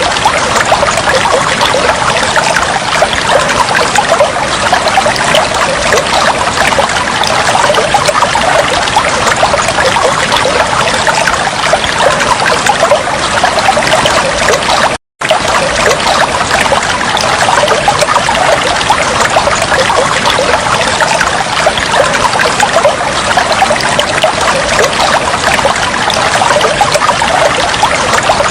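Steady trickling flow of running water, a dense, even splashing that cuts out completely for a split second about halfway through.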